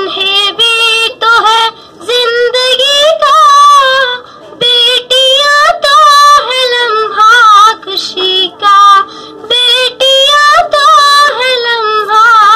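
A boy singing solo into a microphone, unaccompanied, in phrases of held, wavering notes with short breaks between them.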